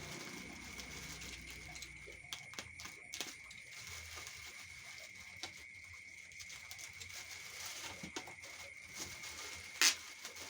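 Scattered light clicks and taps, with one sharper click near the end, over a steady hiss with a faint high whine. These are typical of packaging and a device being handled during an unboxing.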